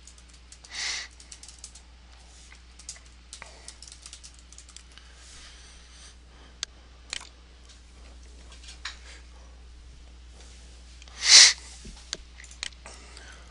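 Typing on a computer keyboard: scattered, irregular keystrokes and clicks. Two short hissing sounds stand out, the louder one about eleven seconds in.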